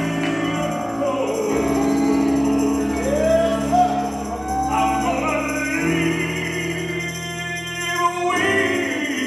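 Gospel song sung by a small church congregation with a tambourine, over held chords that change every few seconds.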